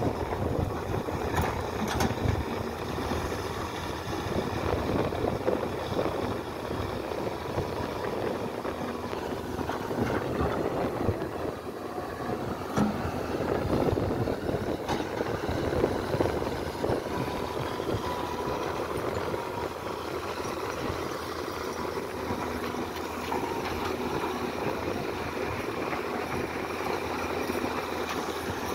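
Diesel engine of a Doosan wheeled excavator running steadily while it digs and loads soil into a tractor trolley, with a few faint clicks along the way.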